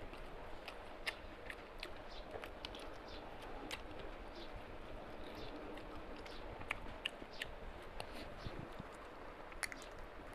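A person eating mutton curry with rice by hand, heard close up: chewing, with many short sharp clicks scattered throughout.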